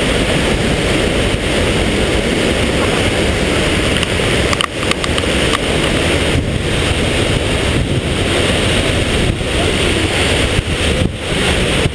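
Loud, steady rush of a waterfall's falling water, mixed with wind buffeting the camera microphone, with a few brief dips.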